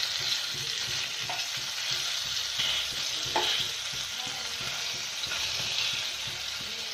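Hilsa steaks sizzling as they shallow-fry in mustard oil in a non-stick wok, a steady hiss. A wooden spatula moving the fish around the pan gives a few brief knocks and scrapes.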